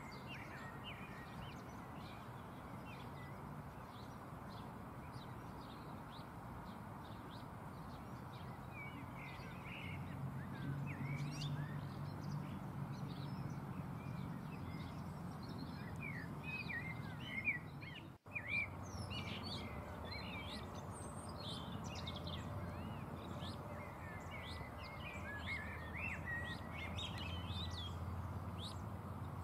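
Many small birds chirping and singing together, short high calls tumbling over one another, over a steady low hum, with a brief dropout a little past halfway.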